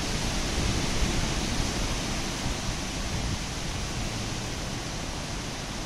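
Hurricane wind rushing steadily through palm trees and dense foliage, with a low rumble of wind buffeting the microphone.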